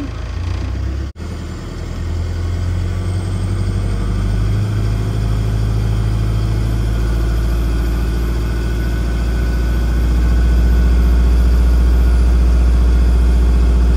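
Isuzu NLS 150 truck's diesel engine brought up from high idle to higher steady revs, getting louder over the first ten seconds or so and then holding. It is driving twin 24 V alternators under heavy charging load, pushing about 6 kW into the batteries.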